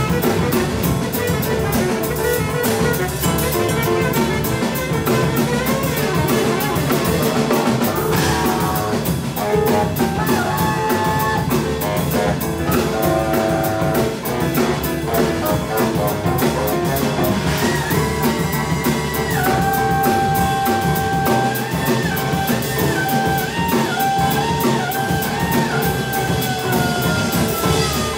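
Live jazz quartet playing: saxophone over grand piano, upright bass and drum kit with busy cymbals. In the second half the saxophone holds long notes, and the last one slides down near the end.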